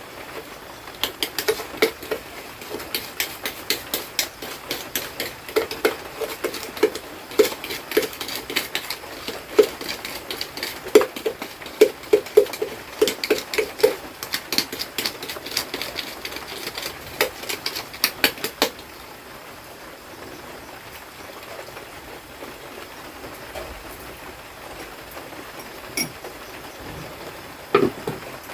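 A spoon scraping and tapping inside a plastic jar in quick, irregular clicks, stopping abruptly about two-thirds of the way through. After that, steady rain hiss, with a couple of single knocks near the end as the jar is set down and closed.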